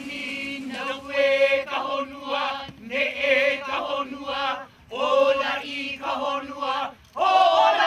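A group of men and women chanting together in a Polynesian ceremonial chant, in phrases of about a second over a steady held note, with brief pauses near the middle and near the end.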